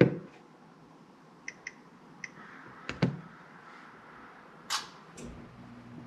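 A sharp tap and a few clicks and knocks, then near the end a Carrier furnace's freshly oiled blower motor starting up, a low steady hum that grows louder.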